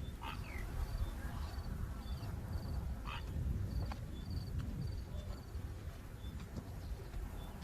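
Wild outdoor ambience: short, high chirps from a small bird or insect repeat about twice a second over a low, steady rumble, with a couple of brief falling calls near the start and about three seconds in.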